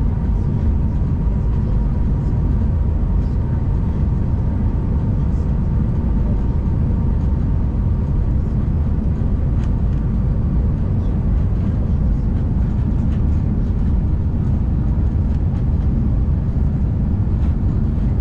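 Steady cabin noise of an Airbus A319 in flight, heard from a window seat over the wing: a deep, even rumble of engines and airflow, with a faint high tone that fades in the first few seconds.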